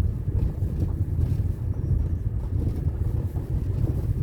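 Steady low rumble of a moving vehicle on the road, with wind buffeting the microphone.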